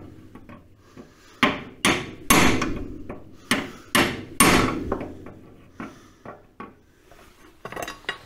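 Hammer blows on steel, knocking at a stuck bolt in an MGB front crossmember: six hard strikes in two sets of three, each ringing briefly, then a few lighter taps near the end. The bolt will not shift, and the mechanic fears it has seized in its hole.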